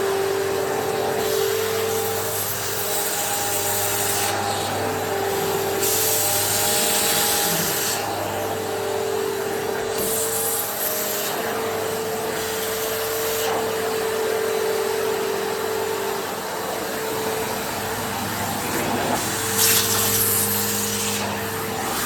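Hoover HushTone commercial vacuum running, sucking along the floor edges through an extension pipe and edging tool. Its motor hum shifts slightly up and down in pitch, and a rush of air through the tool swells and fades several times.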